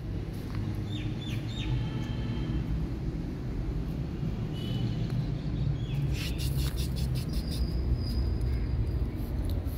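Outdoor ambience: a steady low rumble with a few short bird chirps about a second in, and a brief patter of sharp clicks around six seconds in.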